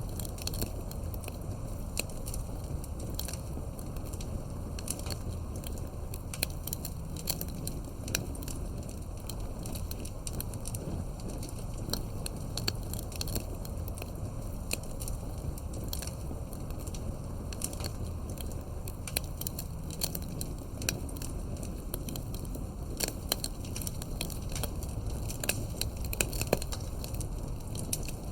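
Fire crackling: a steady low rumble of burning with frequent sharp pops and snaps throughout.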